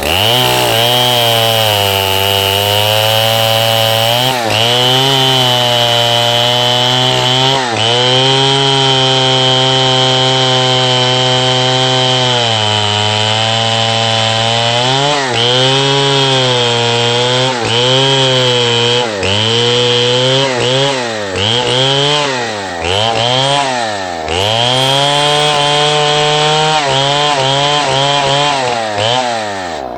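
A 105cc two-stroke chainsaw running at high speed while cutting wood. Its engine note sags and recovers again and again under the load, more often in the second half.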